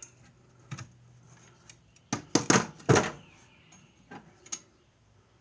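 Steel 3/8-drive shallow sockets clinking against each other and the metal toolbox as they are handled: scattered sharp clinks, with a quick cluster of four about two seconds in.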